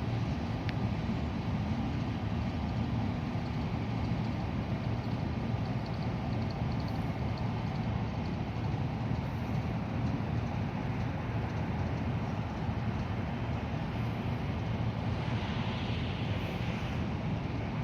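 Steady low rumble of heavy diesel machinery running at a constant level, with a faint rapid ticking about six seconds in and a brief hiss near the end.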